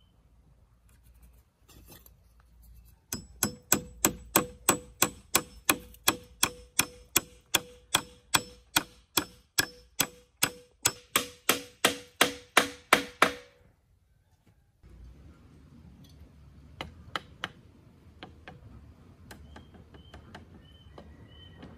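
Claw hammer driving a nail through a wooden brace into a wooden pole: about two dozen steady, evenly spaced blows, a bit over two a second, each one ringing, stopping after about ten seconds. A few faint knocks follow.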